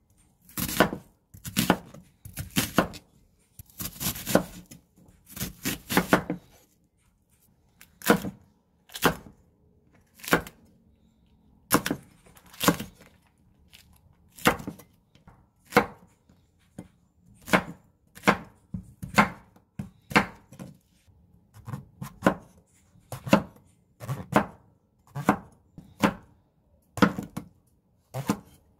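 Chef's knife chopping vegetables on a wooden cutting board: single sharp cuts about once a second, with short gaps between them.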